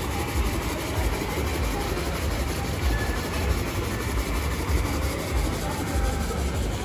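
Steady rushing of water pouring over the rim of a bowl fountain into its pool, with an uneven low rumble underneath.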